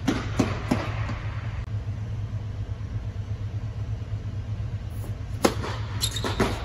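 Tennis balls struck by rackets and bouncing on an indoor court: a few quick sharp hits at the start, a lull, then a serve and the return near the end. Under it runs a steady low hum, typical of the blower fans that keep an air-supported tennis dome inflated.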